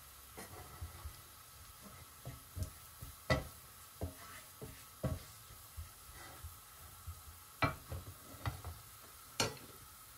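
Wooden spatula scraping and knocking against a nonstick frying pan at an irregular pace, stirring garlic and ground spices in hot oil, over a faint sizzle.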